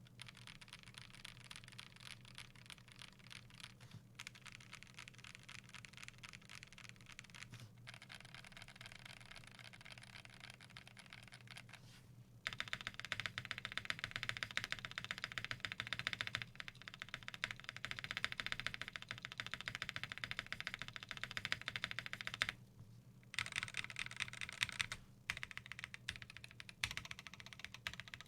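Continuous fast typing on a custom KBD8X mk2 mechanical keyboard with lubed Gazzew Boba LT switches, a polycarbonate plate and PBT keycaps. The keystrokes are softer for about the first twelve seconds, then clearly louder, with two brief pauses near the end.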